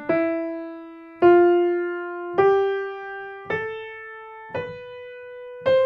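Piano played one note at a time, six notes climbing step by step about a second apart, each struck and left to ring and fade: a slow rising scale played with the fingers alone.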